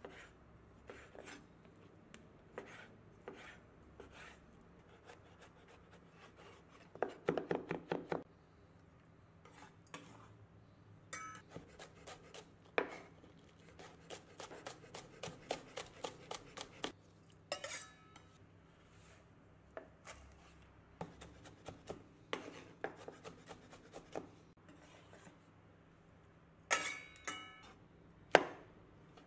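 Chef's knife chopping food on a wooden cutting board: sharp knocks of the blade against the board, some spaced out and some in quick runs of fast chopping, as it cuts through raw chicken breast, spring onions and mushrooms.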